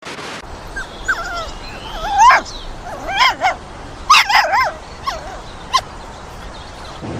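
A dog giving short, high whimpering yips, some single and some in quick runs of two or three.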